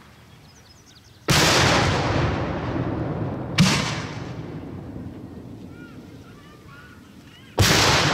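Aerial salute firework shells bursting overhead: three loud bangs a few seconds apart, each followed by a long echoing tail.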